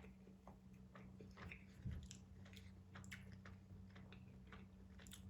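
A person faintly chewing a sub sandwich close to the microphone, with scattered soft wet mouth clicks and smacks.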